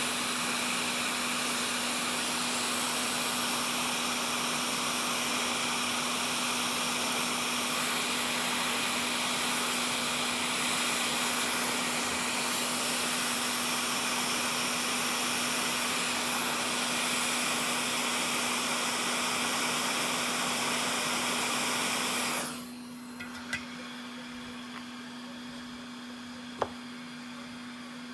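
Hot air rework station blowing steadily with a constant hum, switched off suddenly about 22 seconds in; two faint clicks follow.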